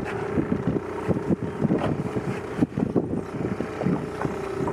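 Small boat's motor running with a steady hum, under irregular gusts of wind buffeting the microphone.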